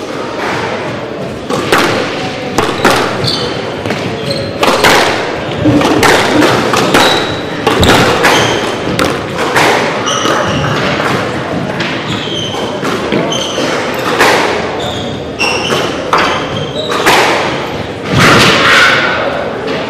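Squash balls cracking off rackets and walls at irregular intervals, mixed with short high shoe squeaks on a hardwood court floor, echoing in a large sports hall.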